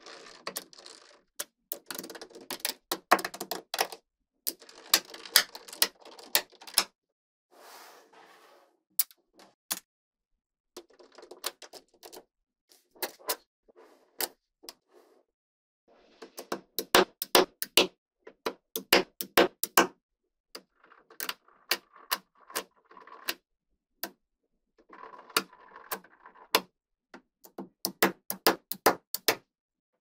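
Small magnetic balls clicking and snapping together as blocks of them are pressed onto a build, in quick runs of sharp snaps with a light rattle and brief pauses between runs.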